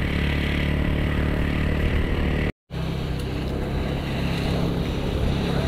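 TVS Ntorq 125 scooter's single-cylinder engine running steadily while riding at moderate speed, with wind and road noise. The sound drops out briefly about halfway, at a cut, then carries on the same.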